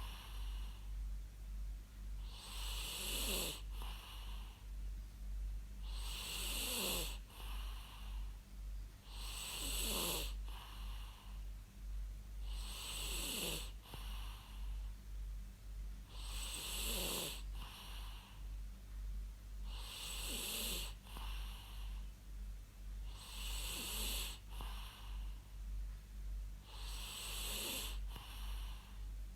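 A person snoring in a steady rhythm, about one snore every three and a half seconds; each snore has a falling pitch and a breathy hiss. A constant low hum runs underneath.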